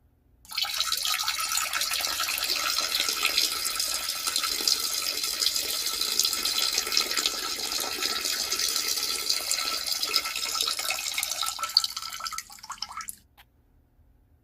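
Peeing sound effect: a steady stream of liquid splashing, starting about half a second in and trailing off near the end.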